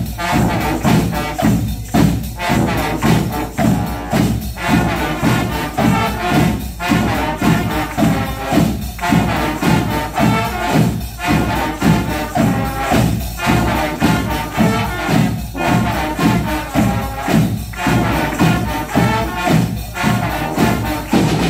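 Live brass band playing a lively tune on trumpets, trombones, clarinets and sousaphone over a bass drum, with a steady beat of about two a second. The audience is clapping along to the beat.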